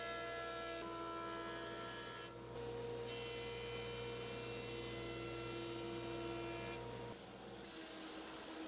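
Woodworking machine motors running with a steady electric hum and a high whine. The pitch pattern shifts abruptly twice, about two and a half seconds in and near the end, when the jointer gives way to the planer.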